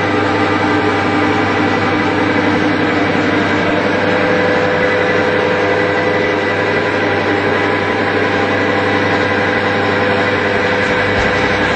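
Wear-and-friction test machine running: a belt-driven electric motor turning a test shaft that is loaded through a lever arm by stacked weights. It gives a steady hum with a constant whine over it.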